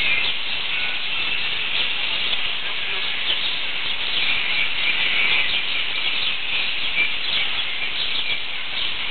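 Many small birds chirping at once, a dense continuous twittering over a steady hiss.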